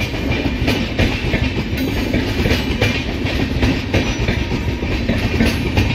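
A train passing close by, its wheels clattering over the rail joints in a run of repeated knocks.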